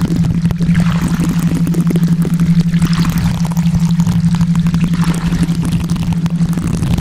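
Steady low drone of a theta-wave tone under a rushing wash of noise like pouring or running water, which swells and fades irregularly.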